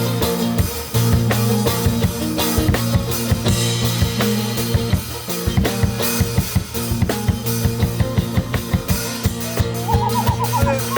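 Kemençe improvising over a backing of held low drone notes and steady drum beats, with a fast trill high in the melody near the end.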